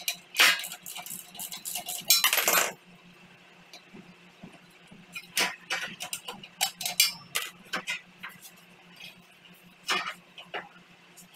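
Metal clinks and rattles as a wrench works the exhaust mounting bolts and the motorcycle's silencer is worked loose and pulled off. There is a busy run of clanks in the first three seconds, then scattered clinks and knocks.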